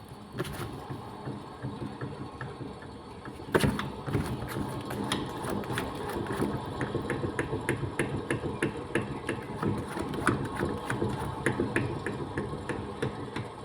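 Maruti Suzuki Ritz rear wheel spun by hand while jacked up: a low hum with an even ticking at about three to four a second, and one knock about four seconds in. The hum is the sign of a worn rear wheel bearing, which the mechanic then says needs replacing.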